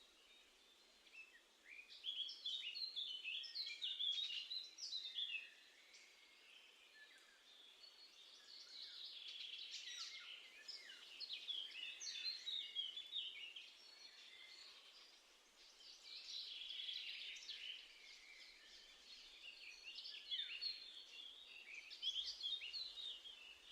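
A songbird singing outdoors in several quick, twittering phrases a few seconds long, each followed by a short pause.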